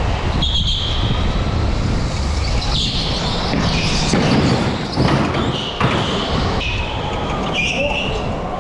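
Electric go-kart driving fast on an indoor concrete track, heard as a continuous rumble and rush of noise, with short high-pitched tyre squeals several times as it corners.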